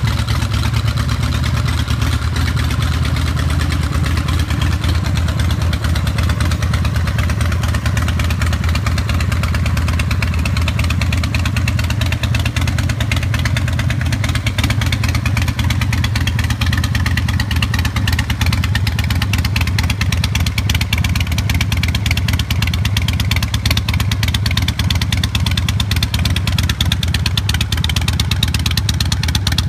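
Custom Harley-Davidson chopper's V-twin engine idling steadily through chrome drag pipes.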